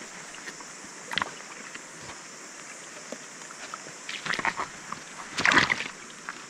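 Splashing in shallow stream water as a hooked rainbow trout is brought to a landing net. There is one short splash about a second in and a louder run of splashes in the second half, over the steady rush of the stream.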